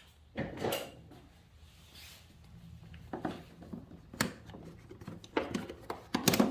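Flathead screwdriver prying at the plastic tabs of a 2020 BMW S1000XR's air filter cover: a handful of short, sharp plastic clicks and scrapes, loudest near the end.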